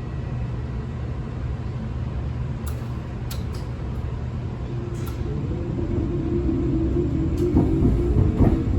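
MAX light rail train pulling away from a stop: a steady low rumble with a few sharp clicks, growing louder from about halfway as a steady motor hum comes in while the train gathers speed.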